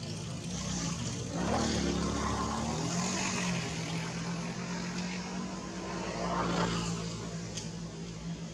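A motor vehicle's engine running steadily, its hum swelling louder about a second and a half in and again near the end.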